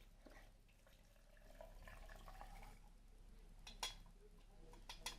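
Faint trickle of hot lemon-boiling water being poured into a glass jar of lemons, with a light click about four seconds in.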